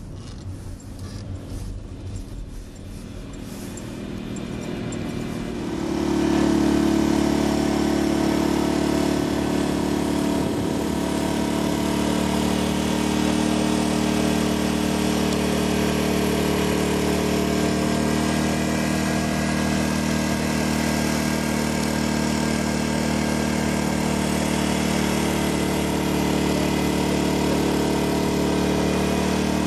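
An engine runs up over a few seconds and settles about six seconds in, then runs steadily at a constant speed.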